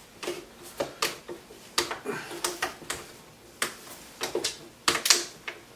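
Irregular sharp clicks and knocks, about a dozen, of the finished plywood panel clamp being handled and tested.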